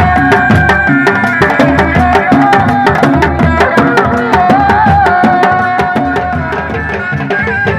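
Sundanese reak ensemble playing: dogdog drums, large rattan-laced conical wooden drums, beaten by hand and with sticks in a fast, dense interlocking rhythm, under a held, ornamented tarompet (Sundanese shawm) melody. The music dips slightly in loudness about six seconds in.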